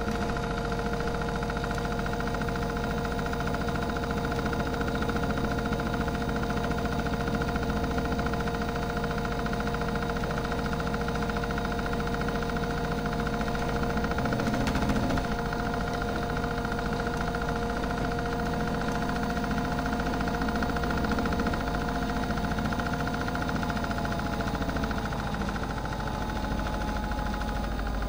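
Miele Softtronic toy washing machine running its wash cycle: the motor turns the drum with a steady hum made of several tones, and a single knock comes about halfway. The pitch sags slightly near the end.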